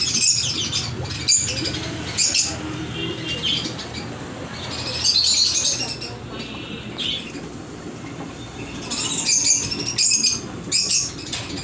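Caged budgies and finches chirping and squawking in repeated bursts of chatter, over a steady low hum.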